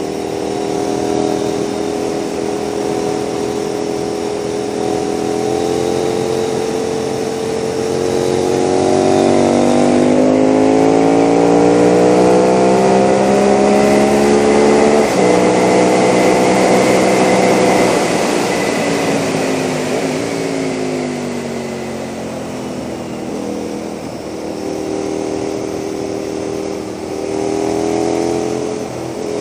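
KTM 990 SMR V-twin with a Leo Vince exhaust, heard from a camera mounted on the bike. The revs rise under hard acceleration with a gear change about halfway, drop as the bike slows for the bends, then climb again near the end. Wind rush grows at the highest speed.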